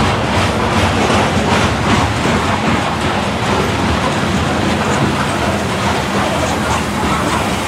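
Covered hopper cars of a freight grain train rolling past, their steel wheels rumbling and clicking on the rails.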